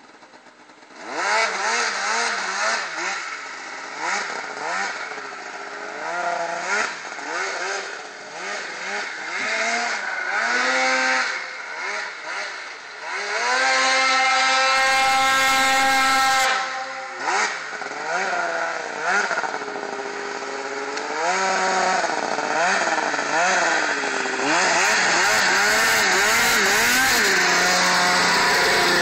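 Snowmobile engine revving over and over, its pitch rising and falling as the sled runs across the snow. About halfway it holds one high, steady pitch for a couple of seconds, and it is louder and closer for the last few seconds.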